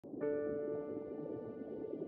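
Ambient background music: a held chord of steady tones that comes in just after the start, over a soft grainy wash.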